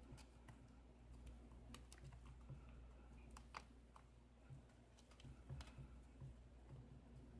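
Faint, irregular clicks of a lock pick and tension wrench working the pins of a Schlage KIK five-pin lock cylinder during single-pin picking, over a low steady hum.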